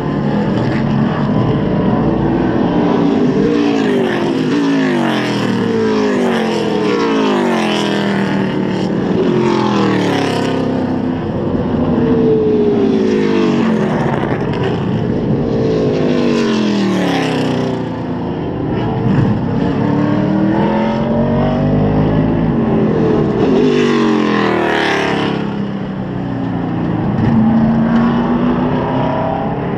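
NASCAR Cup and Busch Series stock cars' V8 engines at racing speed, passing one after another in a continuous stream, each engine note rising and falling in pitch as it goes by.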